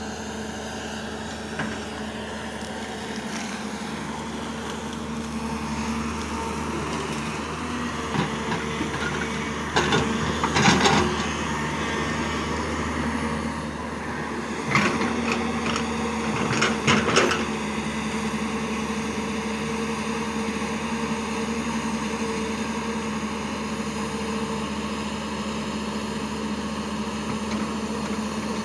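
Hyundai 210 crawler excavator's diesel engine running at a steady hum while it digs and swings. Two bursts of knocks and clatter stand out, about a third of the way in and again just past halfway.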